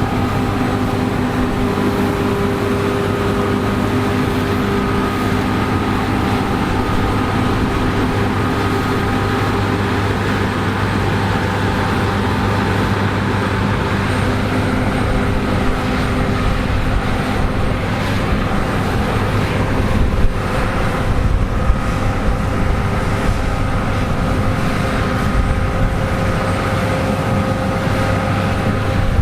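Combine harvester running steadily while harvesting wheat: a constant engine hum with several steady whines from its machinery, over a wash of mechanical noise.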